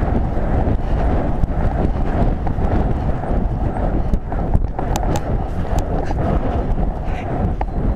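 Horse galloping on grass, its hoofbeats under heavy wind rumble on a helmet-mounted camera's microphone, with a few sharp clicks from about halfway on.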